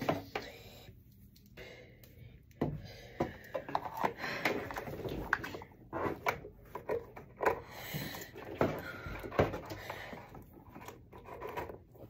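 Irregular rubbing and scattered light knocks and clicks of a cable being pulled and handled against a wooden door frame and wall.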